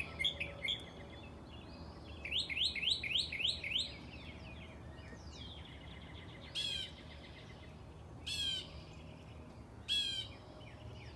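Wild birds singing outdoors: a few chirps, then a run of quick rising whistled notes, then one bird repeating a short burst of song about every second and a half, over a faint low background rumble.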